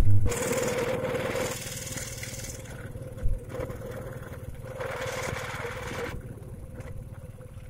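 A small engine running steadily at low revs, with a fine even pulsing and a steady hum, overlaid by a few stretches of hiss.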